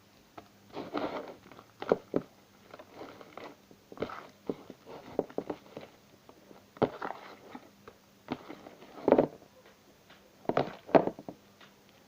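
Hands kneading and squeezing freshly activated glue slime in a bowl, giving irregular wet squelches and sticky clicks and pops, with louder clusters of squishes about a second in, around nine seconds and near the end.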